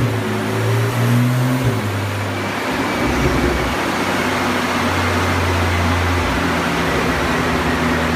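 Porsche 911 Turbo S twin-turbo flat-six running on a chassis dyno, a steady engine drone that settles lower and deeper about two to three seconds in.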